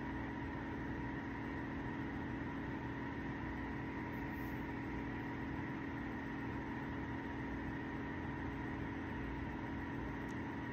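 Steady machine hum from a running household appliance, with faint constant whining tones over an even noise bed.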